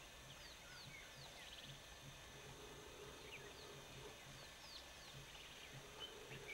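Faint birdsong from several small birds: many short chirps and quick downward whistles, with a brief buzzy trill about two seconds in and again near five seconds.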